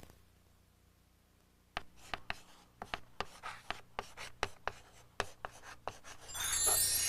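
A quick, irregular series of sharp clicks or taps, about three or four a second, followed near the end by a bright ringing chime that swells in and keeps ringing.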